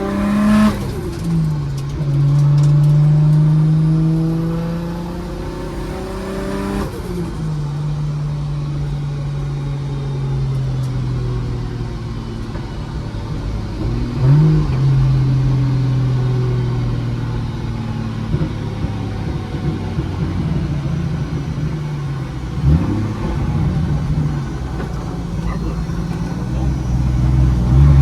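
Nissan C33 Laurel's engine accelerating hard: its note climbs, drops at a gear change about a second in, climbs again for about five seconds and drops at a second shift, then settles to a steady cruise. The owner thinks the engine is still running a bit rich with its timing a bit off.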